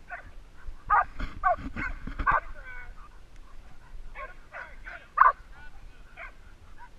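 Four-month-old bay dog puppies yipping and barking at a hog, which is how a bay dog works the hog to hold it at bay. A run of short yips and barks comes about one to two and a half seconds in, and a single sharp, loud bark just after five seconds.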